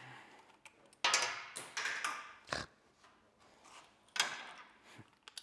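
Hand work on a screw and bracket at the floorboard: a few short scrapes and a sharp click, with pauses between them.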